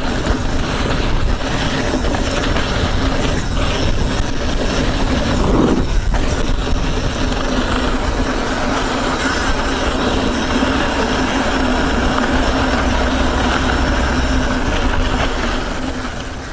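Riding noise from a YT Izzo mountain bike descending a dirt trail: tyres rolling over the dirt, the bike rattling, and wind rumbling on the chest-mounted microphone. The noise is steady and loud, then fades out near the end.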